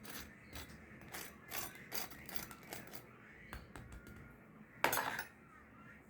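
Kitchenware being handled: a run of light clicks and clinks, with one louder, longer scrape about five seconds in.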